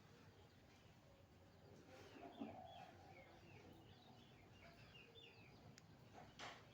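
Faint chirping of small birds, many short calls repeating, with a short lower sound about two and a half seconds in and a sharp click near the end.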